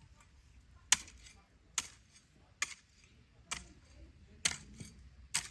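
Six sharp, evenly spaced strikes a little under a second apart, each followed by a lighter knock: a hand tool striking something hard, over and over.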